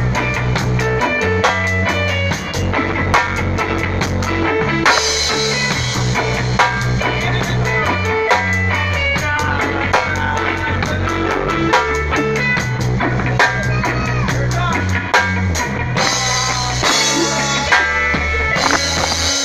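A rock band rehearsing: a Korg keyboard played over drums and electric guitar, with a steady beat and a low bass line.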